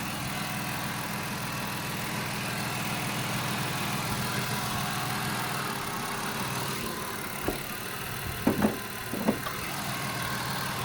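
A 2002 Mercury Cougar's 2.5 L V6 idling steadily, without the strange noise the owner is chasing, which shows up only when driving under load. A few brief chirp-like sounds come about three-quarters of the way through.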